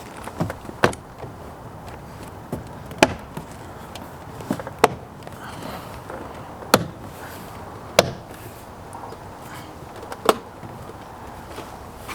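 BMW wagon's rear door trim panel being pressed and knocked back onto the door: a series of about nine sharp, irregular knocks.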